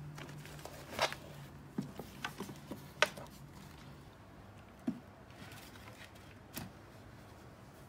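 Light knocks and clicks of bags and their buckles being set down on a wooden cube shelf, a few separate taps with the sharpest about three seconds in.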